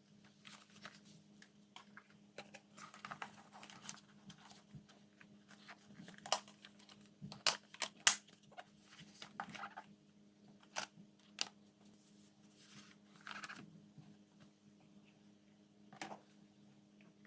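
Irregular clicks, taps and bits of crinkling from food and containers being handled while lunchboxes are packed, over a faint steady hum; the sharpest clicks come in a cluster about halfway through.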